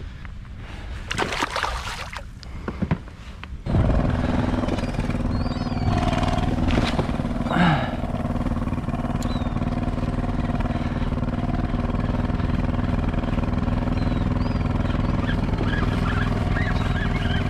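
An engine running at a steady speed, a constant low hum that starts suddenly about four seconds in and holds unchanged.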